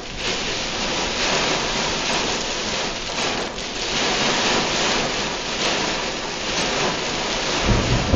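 Very heavy rain pelting a car, heard from inside the cabin as a dense, steady hiss. A low rumble comes in near the end.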